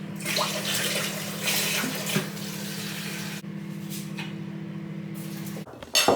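Kitchen tap running into a sink for about three and a half seconds, over a steady low hum that cuts off suddenly near the end. A single sharp clatter follows.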